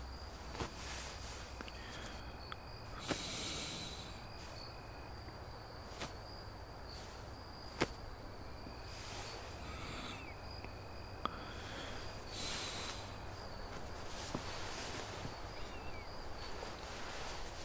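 Quiet night ambience: a steady high insect trill like a cricket, with two soft rustles and a few small clicks over a low hum.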